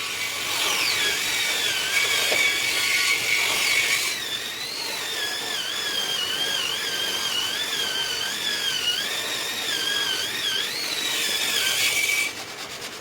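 A power tool's motor running with a high whine that wavers up and down in pitch, cutting off about a second before the end.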